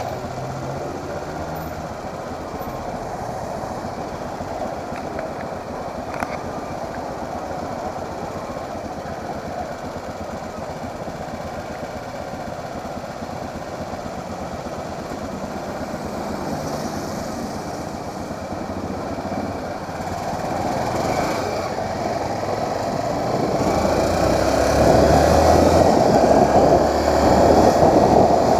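Motorcycle being ridden: steady engine and road noise, growing louder over the last third.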